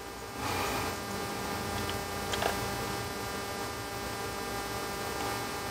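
Steady electrical mains hum. Faint handling noise and a single small click about two and a half seconds in come from fingers setting a gauge needle on the plastic instrument cluster.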